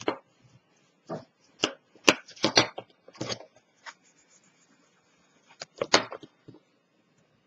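Stiff cardstock being handled, folded and creased with a bone folder: a run of short, sharp crackles and taps, loudest about two to three seconds in and again about six seconds in.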